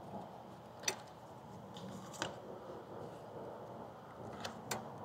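A few faint, sharp metal clicks as thin linkage rods are hooked into the choke and throttle arms of a Honda GCV160 carburetor: the loudest about a second in, another just past two seconds, and two close together near the end. Faint steady background noise underneath.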